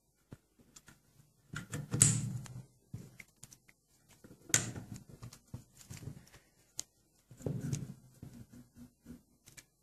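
Clicks and knocks from a small cast-iron trap cannon being handled and worked by hand, with three heavier knocks about two, four and a half, and seven and a half seconds in; the first is the loudest.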